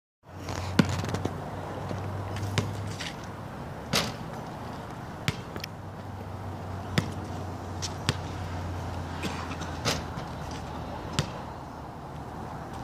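A basketball bouncing on an asphalt court: sharp single thumps at uneven intervals, about eight in all, over a steady low hum.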